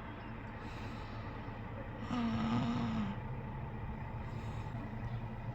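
Steady low outdoor rumble, with a brief wavering hum about two seconds in that lasts about a second.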